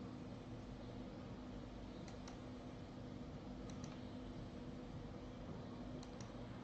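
Computer mouse clicking: three pairs of sharp clicks, each pair a fraction of a second apart, over a steady low hum.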